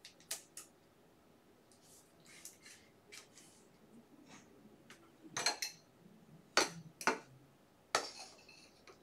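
Hard plastic card holders clicking and knocking against each other and the table as trading cards are handled, with soft card rustling between. A few scattered sharp clicks, the loudest coming in the second half.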